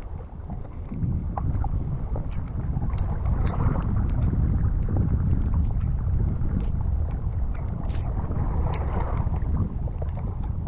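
Wind buffeting the microphone in a steady low rumble on a stormy seashore, with waves washing in twice as a rising hiss.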